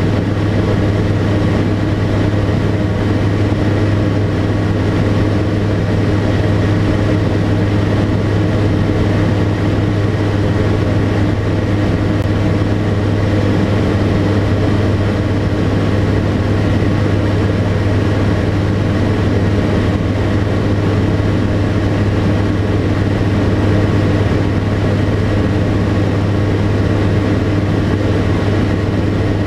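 Tecnam P92 Echo Super's Rotax 912 flat-four engine and propeller running at a steady, constant power setting: an even drone with a strong low hum that does not change in pitch or loudness.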